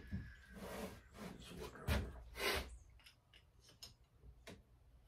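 Handling and rummaging through tools and parts on a garage workbench: rustling and a sharp clatter, loudest about two seconds in, then light clicks as small parts are handled.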